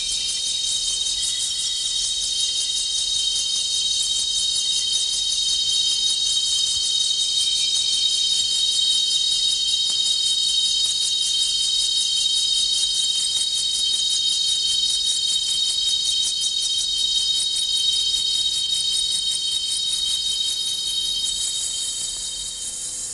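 Sustained high-pitched chirring drone of very rapid, even pulses, like an insect chorus, from an experimental designed soundtrack; it eases off near the end.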